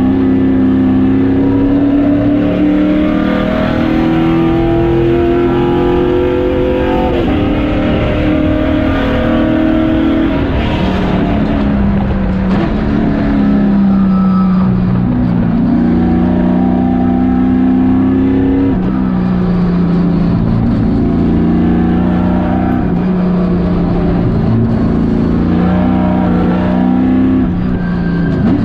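Stock race car's engine heard from inside the cockpit, running hard. Its pitch climbs slowly and falls back about every four seconds as the car accelerates and eases off in turn, over a steady rumble of road and chassis noise.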